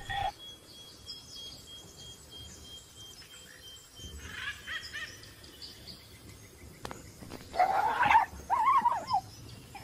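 A fox yelping in high, wavering cries, in two short bouts near the end: distress cries from prey pinned by an eagle.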